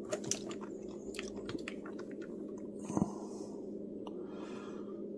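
Multimeter test probes and leads being handled and moved on bench power-supply terminals: a run of small clicks and rustles in the first second and a half, then a single knock about three seconds in, over a steady low hum.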